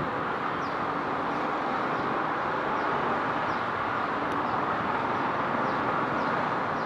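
Nepal Airlines Airbus A320's jet engines running at takeoff power as the airliner accelerates down the runway, a steady even rushing noise.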